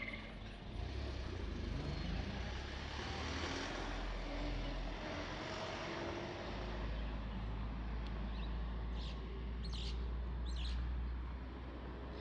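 Road traffic: motor vehicles passing with engine and tyre noise over a steady low rumble, one engine rising in pitch in the first seconds. A few short bird chirps come in near the end.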